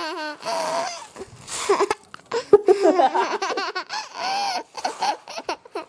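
A toddler and a man laughing, in short repeated bursts.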